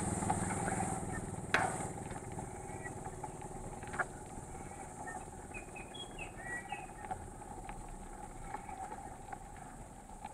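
Mountain bike rolling along a paved road: steady tyre and drivetrain noise, with a motorcycle engine fading out in the first second. Two sharp clicks, one about one and a half seconds in and one at about four seconds, and a few short bird chirps around the middle.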